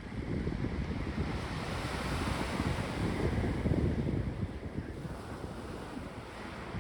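Sea waves breaking on the shore: one wave builds from about a second in, crashes and hisses most loudly around the middle, then washes back and fades. Wind buffets the microphone throughout with a low rumble.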